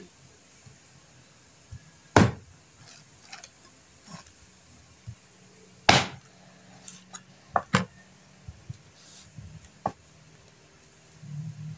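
Knife chopping frogs on a cutting board: a few sharp, separate chops, the two loudest about two and six seconds in, with lighter knocks and cuts between them.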